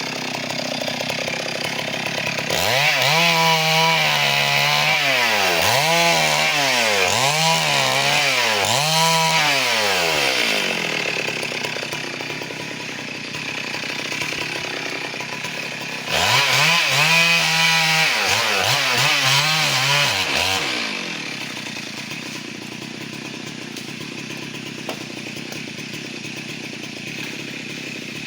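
Two-stroke chainsaw cutting teak wood, its engine pitch swinging up and down over and over as the saw is worked through the log. There are two spells of hard cutting, one from a few seconds in and one that starts suddenly past the middle, with the saw running lower and quieter between them and at the end.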